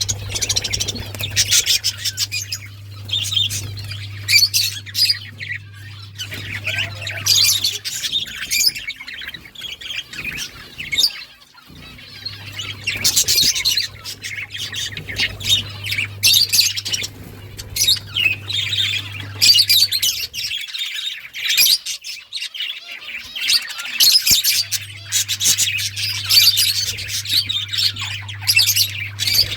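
A flock of budgerigars chirping and chattering continuously in quick overlapping calls. A steady low hum runs beneath them and drops out twice for a few seconds.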